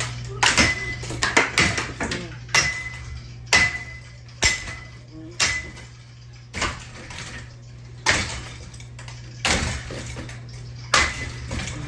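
A ceiling fan being struck hard again and again: about a dozen metallic clanks, roughly one a second, several leaving a short ring. A steady low hum runs underneath.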